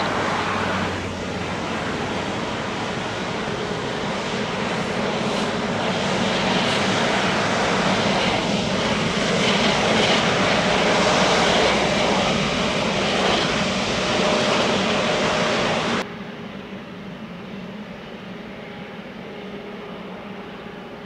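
Airbus A350-900's Rolls-Royce Trent XWB turbofan engines running at low taxi power as the airliner rolls past on the ground, a steady jet whine and rush that swells and then eases. About sixteen seconds in the sound drops suddenly to a quieter, more distant engine hum.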